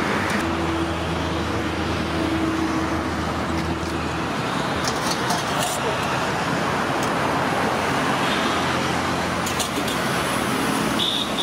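Road traffic noise, with a vehicle engine running steadily with a low hum for the first four seconds or so. A few short light clicks come around the middle and near the end.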